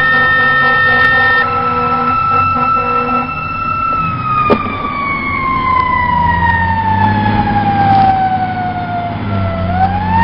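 Fire siren sounding a long wail for a dispatch. Its pitch holds steady for about four seconds, slowly winds down, then starts to climb again near the end. A second steady tone stops about a second and a half in.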